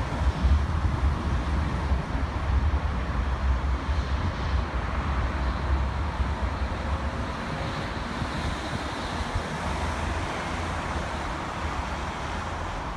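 Class 399 tram-train running on, its low rumble slowly fading as it moves away.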